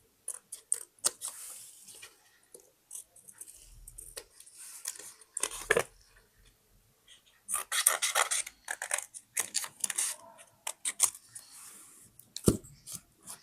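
Paper being handled and cut for a scrapbook: irregular rustles, crinkles and crisp snips, busiest a little past the middle, with a sharp knock on the table near the end.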